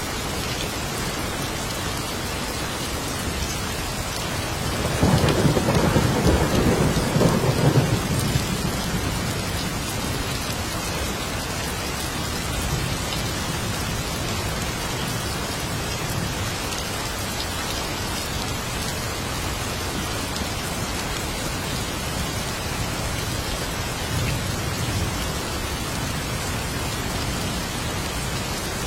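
Steady heavy rain with a roll of thunder that swells in about five seconds in and rumbles for some three seconds before fading back into the rain; a fainter rumble comes near the end.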